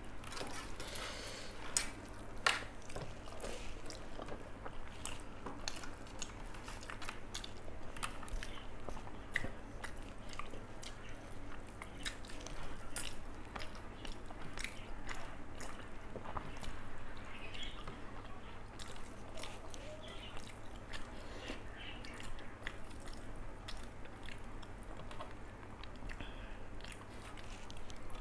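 A person chewing and biting mouthfuls of rice with fish curry, a continuous run of short wet mouth clicks and smacks. A steady low hum runs underneath.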